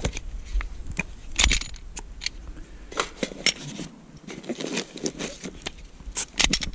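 Clicks and light knocks of Glock pistols being handled and checked, their slides and parts clicking and the guns set down and picked up from a padded gun bag. The knocks come irregularly, the sharpest a bit over a second in and just before the end.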